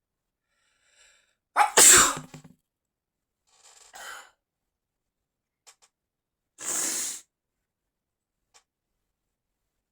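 A person sneezing: a short intake, then one loud voiced sneeze about two seconds in, followed by breathing and a softer, hissy burst around seven seconds.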